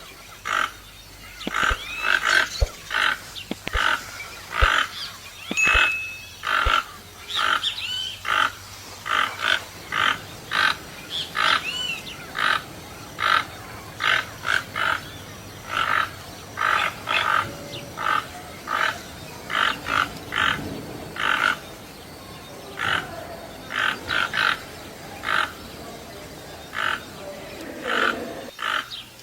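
Toucan calling over and over: short, loud croaking notes repeated about one to two a second at uneven spacing. A few thinner whistled notes from other birds are mixed in.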